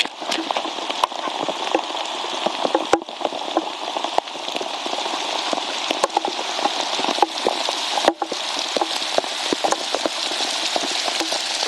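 Heavy thunderstorm downpour: steady rain hissing, with a dense scatter of sharp drop hits close to the microphone.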